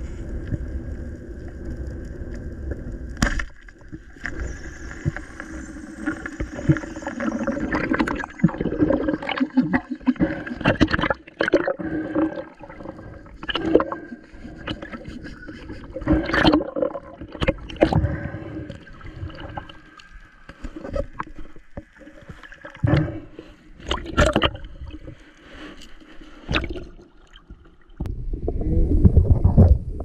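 Underwater sound heard through a diver's camera: irregular clicks and knocks, gurgling, and a steady low hum. Near the end it changes suddenly to a loud rush of water and wind as the camera breaks the surface.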